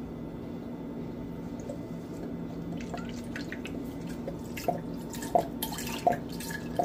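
Soy sauce pouring from an upturned bottle into a saucepan, trickling and glugging into the liquid. In the second half a glug comes about every two-thirds of a second, over a steady low hum.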